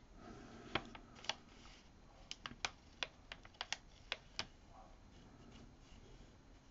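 Faint, irregular clicks of a pen tip tapping and dabbing on a paper print, about a dozen taps in the first four and a half seconds.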